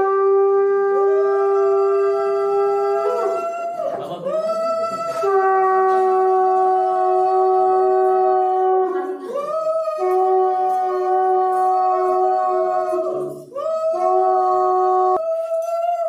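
Conch shells (shankha) blown in long, steady held notes, two at once at different pitches; the notes break off and start again about three times. Conch blowing marks an auspicious moment in a Bengali Hindu wedding rite.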